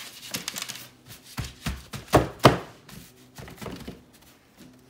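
Irregular knocks and taps from handling a metal sheet tray with rolled-out cracker dough on a stone counter, the two loudest close together a little past two seconds in.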